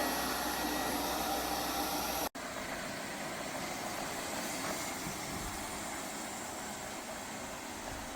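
Lefant M210 Pro robot vacuum running, a steady whirring of its suction fan and brushes. About two seconds in, the sound cuts out abruptly for a moment and comes back quieter and duller, with less of the high whine.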